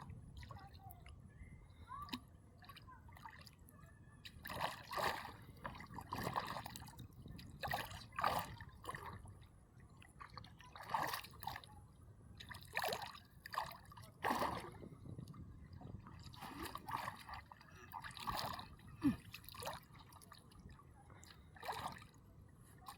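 Water splashing and sloshing in short, irregular bursts, with trickling and dripping between them.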